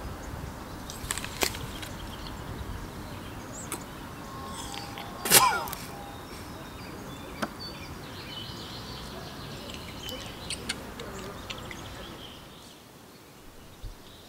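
Outdoor background noise with a few small clicks, and one loud sudden sound about five seconds in.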